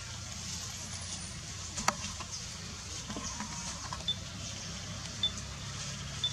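Outdoor forest background: a steady low rumble with a faint high hiss, one sharp click about two seconds in, and three short high chirps in the second half.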